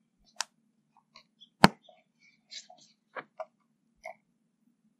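Small wood fire in a portable metal fire box crackling, with scattered irregular pops and one sharp loud crack about one and a half seconds in.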